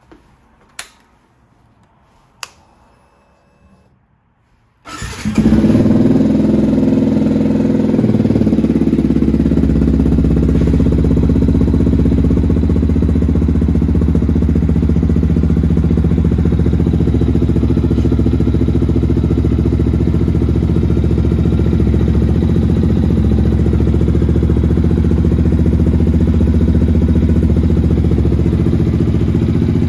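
Two sharp clicks, then about five seconds in the Yamaha WR125X's single-cylinder, water-cooled 125 cc engine starts through its Arrow sports exhaust. It settles within a few seconds into a steady idle.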